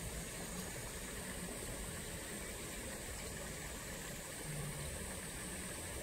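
Steady rushing of flowing water: an even, unbroken noise.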